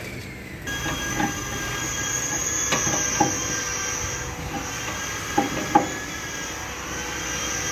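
A steady high-pitched mechanical whine sets in under a second in and holds, with a few sharp metallic clinks from a spanner working on the fittings.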